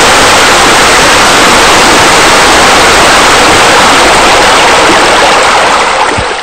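Steady rush of water pouring over pool waterfalls and spillways, a loud even splashing that begins to fade near the end.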